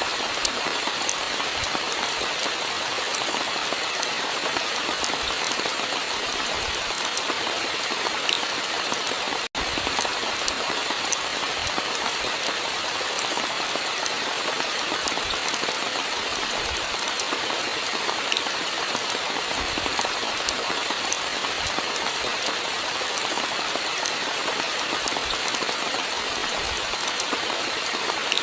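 Steady, heavy rainfall, a dense hiss dotted with many fine, sharp drop ticks. The sound cuts out for an instant about nine seconds in.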